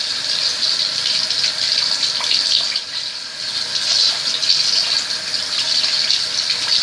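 Bathroom sink tap running steadily, with light splashing as water is used to rinse off face cleanser.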